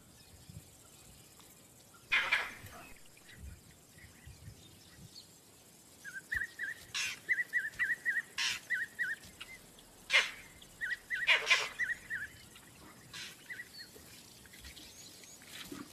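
Vervet monkey alarm calls, signalling a predator nearby. One sharp call comes about two seconds in. From about six seconds several loud sharp calls follow, with two runs of quick, high repeated chirps between them.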